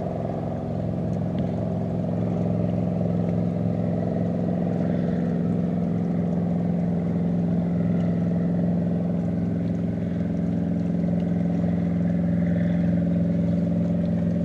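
Boat motor running steadily, a constant low-pitched hum with many overtones that holds the same pitch throughout.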